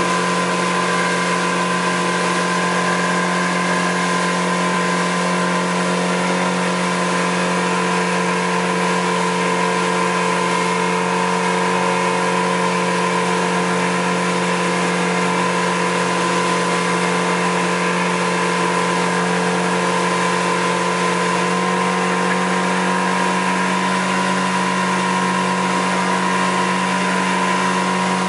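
Outboard motor running steadily at speed while towing a water-skier, its pitch unchanging throughout, over the hiss of the boat's wake.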